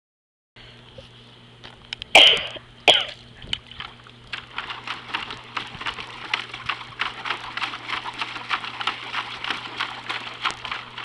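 A puppy coughs twice, then makes a fast, even run of wet lapping sounds in water, several a second.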